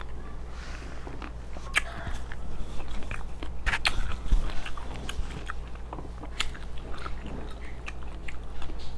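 Close-miked chewing of crisp raw cucumber: wet crunching with irregular sharp crackles and clicks.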